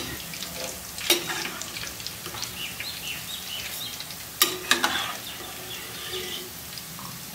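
Batter-coated soya chunks deep-frying in hot oil in a kadai: a steady sizzle. Metal slotted spoon and wire strainer knock against the pan a few times, sharpest about a second in and around four and a half seconds in.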